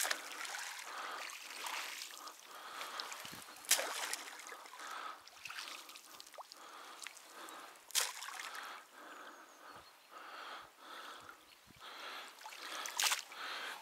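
Water sloshing and dripping as a long stick is worked through a duckweed-covered ditch to pull a shot duck in to the bank, with four sudden sharp sounds a few seconds apart.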